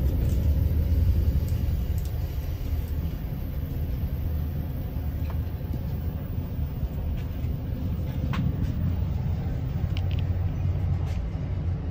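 Steady low rumble of a moving Pacific Surfliner passenger train, heard from on board, with a few faint clicks from the running gear.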